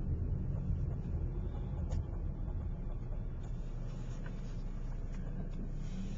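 Steady low rumble of a car's engine and tyres, heard from inside the cabin as it drives.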